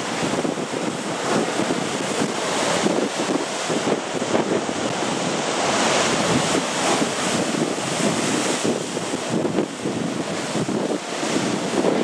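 Rough sea surf breaking and churning against rocky cliffs, a continuous wash of water noise that swells and eases, with strong wind buffeting the microphone.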